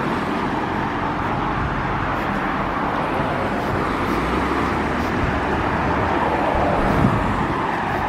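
Steady road traffic noise, a continuous rush of passing cars, with a brief louder swell about seven seconds in.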